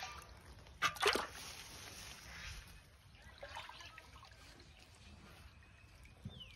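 Shallow muddy water splashing and sloshing as hands work in it while catching a fish by hand, with two loud, sharp splashes about a second in.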